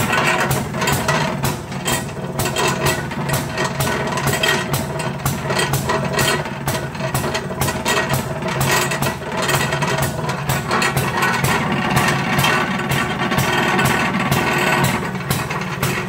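Maytag Model 92 single-cylinder two-stroke gasoline engine running steadily with a rapid, even popping exhaust as it drives the washing machine.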